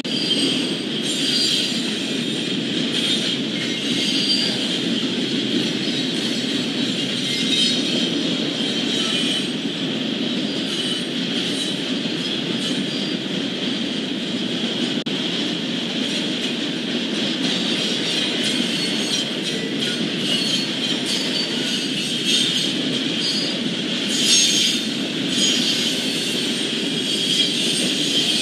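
Double-stack intermodal freight cars rolling past on steel rails: a steady rumble of wheels and cars with a continuous high squeal from the wheels.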